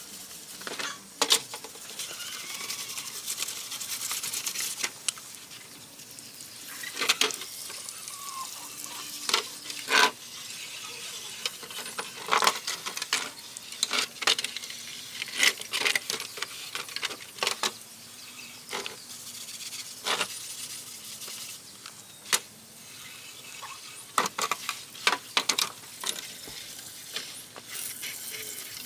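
Hand work on an old television set: irregular sharp clicks and light knocks of tools and small parts being handled, over a faint steady hiss.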